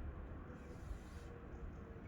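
Distant SES 250 siren sounding one faint, nearly steady tone that sags slightly in pitch, under low rumbling wind noise on the microphone.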